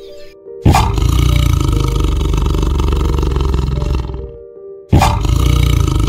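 A large animal's loud, rough roar in two long bouts. The first starts suddenly under a second in and lasts about three and a half seconds; the second starts again about five seconds in. Background music plays beneath.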